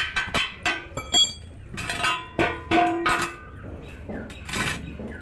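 Metal clinking and tapping: a run of sharp strikes, one ringing briefly about a second in, with short scraping noises in between.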